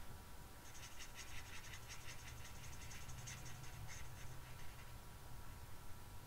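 Felt-tip nib of a Stampin' Blends marker scratching over cardstock in quick, small colouring strokes, starting about half a second in and thinning out after about four seconds.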